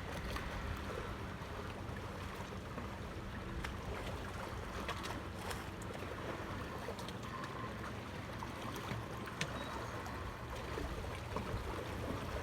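Steady waterside ambience: water moving under a low rumble, with scattered small clicks.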